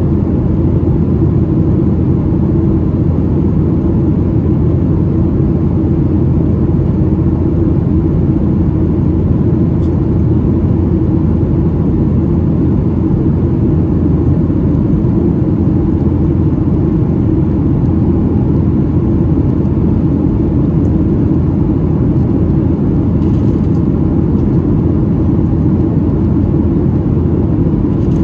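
Steady low rumble of jet engine and airflow noise heard inside the cabin of a Boeing 737-800, its CFM56-7B engines running in flight.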